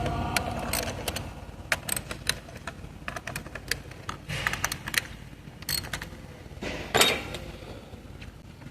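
Ratchet and socket tools clicking and clinking irregularly against metal parts while ignition coils and spark plugs are being taken out of the engine, with a louder rattling clatter about seven seconds in.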